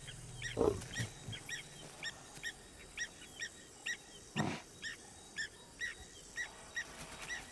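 African buffalo bull snorting: a softer short snort just under a second in and a louder one about halfway through. Behind it runs a steady series of short high chirps, two to three a second.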